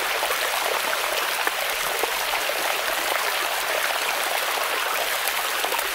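AI-generated water sound effect: a steady rush of running water with many small splashes.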